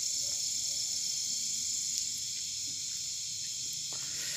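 Steady, high-pitched chorus of night insects.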